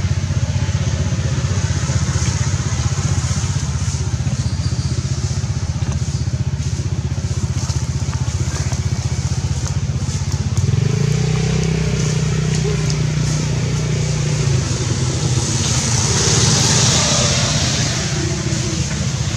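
A vehicle engine running close by, a steady low drone. A louder, steady-pitched hum comes in about eleven seconds in and drops away about four seconds later. A hiss then swells and fades near the end.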